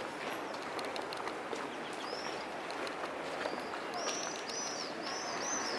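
A bird giving short high chirps, one about two seconds in and a quick run of them near the end, over steady outdoor street noise.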